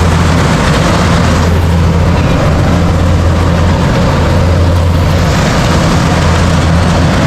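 Engine of rice-harvest machinery running loud and steady at one constant speed.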